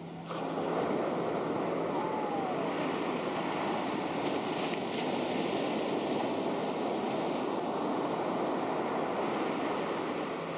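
Steady wash of ocean surf mixed with wind noise on the microphone, coming up sharply just after the start and then holding steady.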